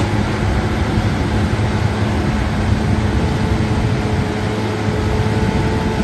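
New Holland T6090 tractor engine running steadily under load while pulling a New Holland big square baler: a continuous drone with a steady low hum.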